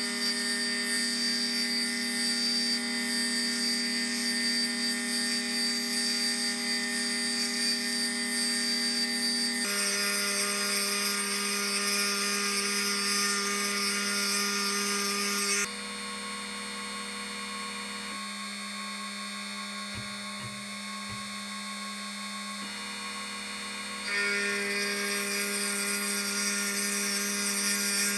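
Milling machine spindle running with a 3 mm end mill plunge-cutting a keyway pocket in a bevel gear's bore: a steady whine over a cutting hiss. The whine drops a little in pitch and the hiss grows about ten seconds in, then the sound goes quieter for several seconds past the middle and comes back up near the end.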